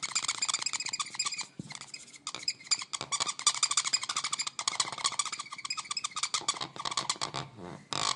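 Marker pen squeaking in quick, rapid strokes as it writes, with a few short pauses between bursts of writing.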